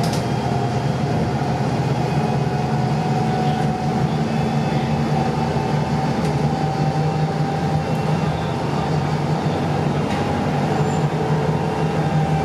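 Volvo D5K-240 four-cylinder diesel of a double-decker bus running steadily under way, heard from inside on the upper deck. A thin whine sits above the engine note and rises slightly in pitch.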